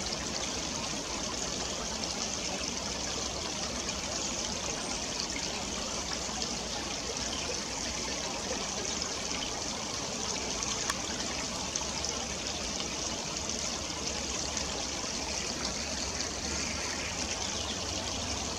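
Shallow stream trickling steadily over rocks.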